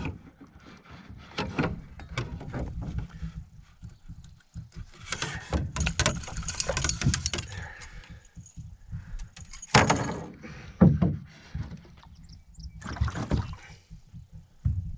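Irregular knocks, rattles and splashy rustling in a canoe as a freshly caught smallmouth bass is landed and handled, with louder bursts about five to seven seconds in, again at ten seconds, and near thirteen seconds.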